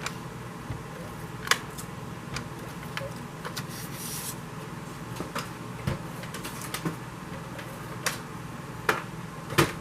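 Paper and cardstock being handled and pressed down while gluing a card: scattered light taps and clicks, with a brief rasp about four seconds in.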